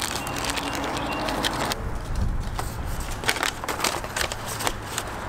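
A small plastic hardware bag and a paper instruction sheet crinkling and rustling in someone's hands, with many small crackles and clicks.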